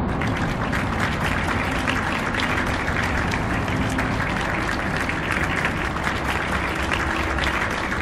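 A crowd clapping and applauding, a dense, even patter of many hands with no break.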